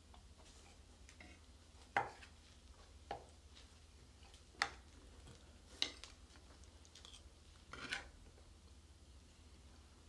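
Spoons and cups clinking on plates and mugs at a meal: about four separate short clinks, then a longer scrape near the end.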